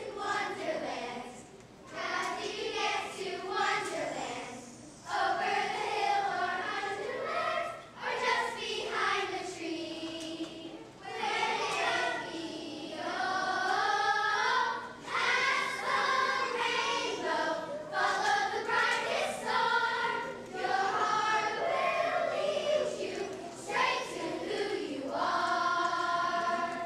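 Children singing a song together, in sustained phrases with short breaks between them.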